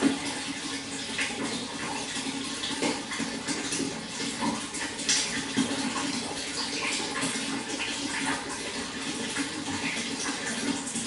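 Running water flowing steadily, a continuous rush with many small splashes and droplets throughout.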